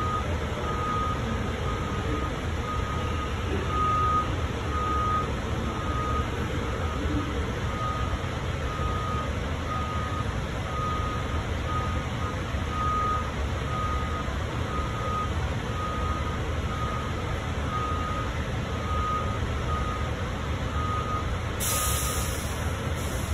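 Steady low hum inside a JFK AirTrain car, which is standing still, with a high electronic beep repeating about once a second. A short hiss comes near the end.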